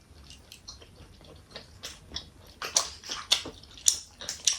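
Close-up eating sounds: chewing and lip smacking on momos, a run of short wet clicks that gets busier about halfway through.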